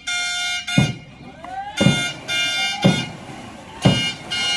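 Snake boat crew keeping the rowing stroke: a heavy thud about once a second, with long shrill whistle blasts between the thuds and some shouting voices.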